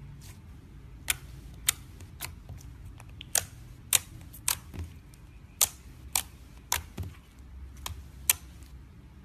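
A series of sharp clicks, about fourteen, coming irregularly roughly every half second, some much louder than others, over a low steady hum.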